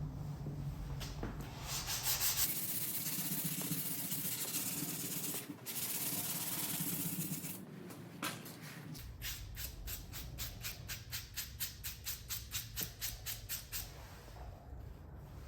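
Sandpaper being rubbed by hand over a surface: a steady scratchy rubbing for several seconds, then quick back-and-forth strokes at about three or four a second, dying out near the end.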